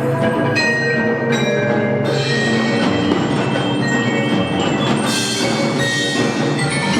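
Children's percussion ensemble playing: marimbas, xylophones and glockenspiel with tubular bells, wood block and other percussion, steady and loud. A cymbal or bright metal wash enters about five seconds in.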